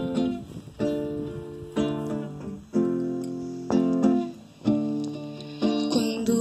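Acoustic guitar strumming slow chords of a worship song, about one strum a second, each chord left to ring out before the next.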